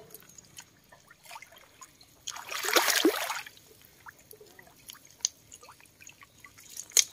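Shallow marsh water splashing and trickling around a green folding mesh fish trap as it is handled, with small drips throughout. A louder rush of splashing water lasts about a second, midway through, and a sharp splash or knock comes near the end.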